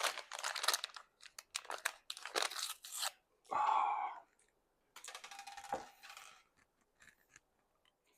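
A plastic M&M's candy bag crinkling and tearing open in several bursts of crackly rustling, most of it in the first three seconds, with quieter handling toward the end.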